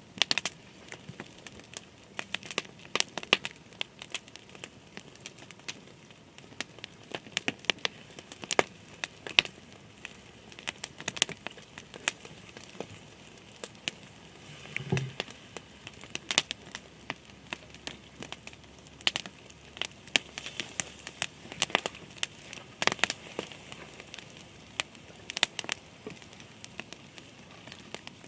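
Irregular sharp crackles and crinkling clicks, several a second at times, with a brief low thump about fifteen seconds in.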